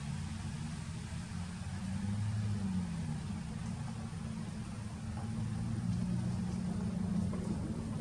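A steady low rumble, a little louder around two seconds in and again near seven seconds.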